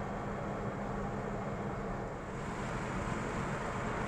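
Steady road and engine noise inside a moving car's cabin, with a low hum that drops away a little past two seconds in.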